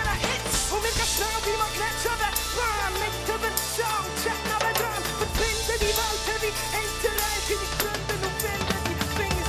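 Hip-hop song with a drum-kit beat and a bass line that changes note about every two seconds, with short melodic lines over it and no rapped words.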